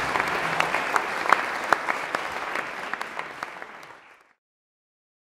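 A crowd clapping, the applause fading away about four seconds in.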